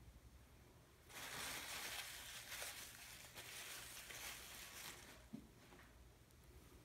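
Soft rustling and crinkling of something being handled, starting about a second in and lasting about four seconds, with a single light knock near the end.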